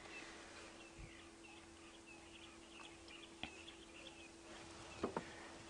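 Faint bird chirping, a quick run of short high notes over a steady low hum, with a single sharp click partway through.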